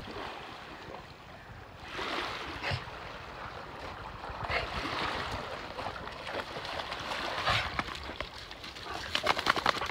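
A dog paddling and splashing in shallow seawater in several swells of noise, then wading out onto a pebble beach, with a quick run of crunching clicks from its paws on the stones near the end.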